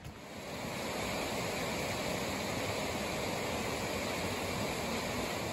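Steady rushing of water in a snowy river valley, an even hiss that fades in about a second in and fades out near the end.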